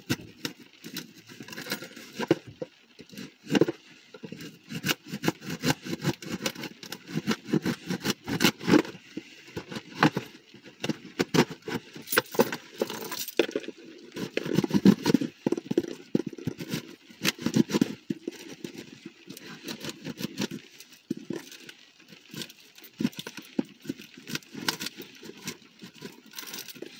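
A cardboard toy box being worked open by hand: irregular clicks, scrapes and crinkles of cardboard and packaging, with no steady pattern.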